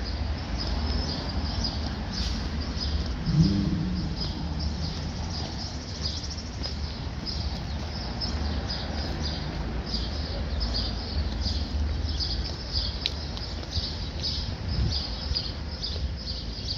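Small birds chirping over and over, with short high chirps following one another all the way through, over a steady low rumble.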